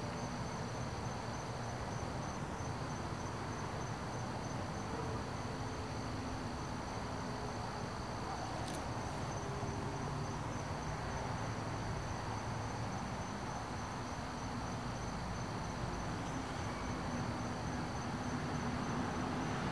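Night insects, most likely crickets, trilling steadily in two continuous high-pitched tones over a low, even background rumble.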